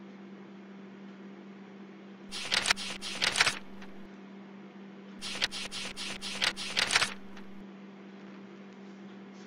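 A computer mouse button clicked rapidly in two runs of several clicks, the first about two seconds in and the second about five seconds in. A steady electrical hum runs underneath.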